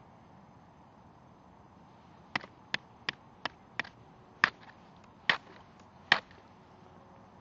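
A wooden stick striking thin ice, eight sharp knocks starting about two seconds in. They come about three a second at first, then space out, and the last few are the loudest.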